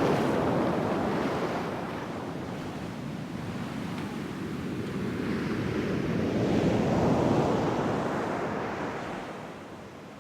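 Sea waves breaking and washing on the shore, the surf swelling and ebbing: one wave loud at the start, a second building to a peak around two-thirds of the way through, then dropping away near the end. Wind blows across the microphone.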